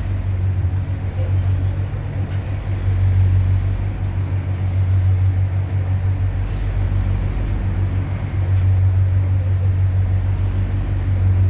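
Steady low hum inside a Mitsubishi Crystal Mover C810 LRT car, its onboard equipment droning evenly.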